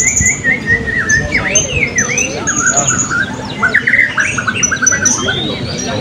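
Many caged blue-crowned hanging parrots (serindit) calling at once: overlapping shrill chirps, short whistles and trills, with a fast rattling trill about four seconds in.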